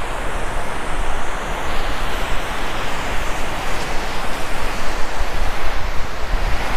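Sea surf washing onto a sandy beach, a steady rushing noise, with wind buffeting the microphone in low rumbles.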